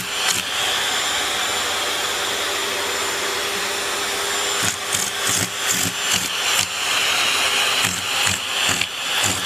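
A steady, even rushing noise of a small electric blower motor, such as a vacuum cleaner or hair dryer, with a faint hum under it. From about halfway on it is broken by irregular knocks and rustles.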